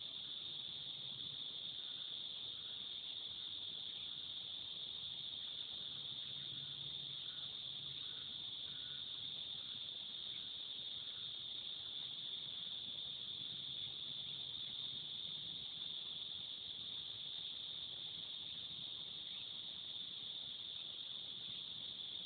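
Cicadas singing in a steady, unbroken high-pitched buzz.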